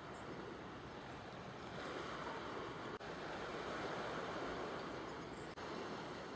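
Steady rushing outdoor noise of wind and sea at the shore, swelling a little in the middle, broken by two brief dropouts.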